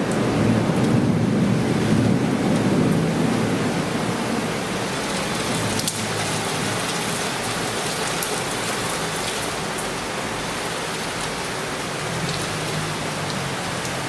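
Torrential cloudburst rain pouring down in a steady, dense hiss, with a low rumble of thunder over the first few seconds that fades away.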